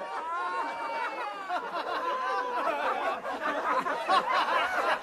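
A group of voices laughing and chattering over one another.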